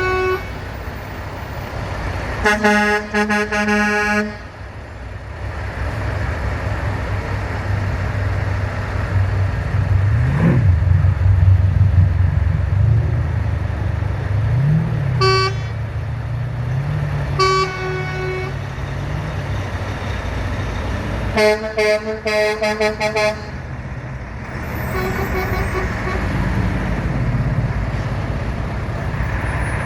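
Trucks in a convoy driving past and sounding their horns over the steady low running of their engines: a long blast about three seconds in, two short toots around the middle, then a run of quick pulsed blasts and a fainter horn after them. Engine pitch rises and falls as the trucks pass.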